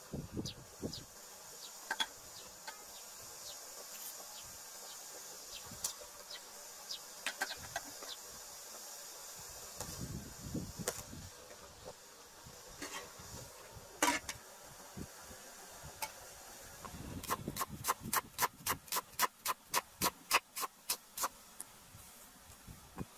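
Insects buzz steadily in the background, with a few scattered knocks of a metal ladle against an aluminium cooking pot. Near the end a cleaver chops rapidly on a wooden chopping board, about four even strokes a second for some four seconds.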